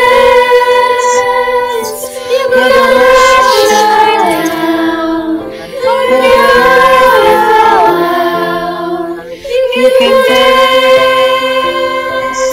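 A children's school chorus singing, many young voices recorded separately at home and mixed into a virtual choir. Sustained notes come in phrases of three to four seconds, with short breaths between them.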